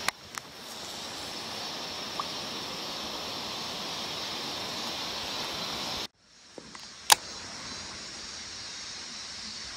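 Steady rushing hiss of running water. It breaks off briefly about six seconds in, and a single sharp click follows about a second later.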